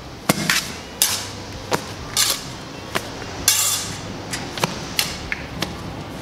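Steel brick trowel scraping and knocking on a concrete floor as it spreads a mortar bed: a string of sharp scrapes and taps about a second apart, with one longer scrape a little past halfway.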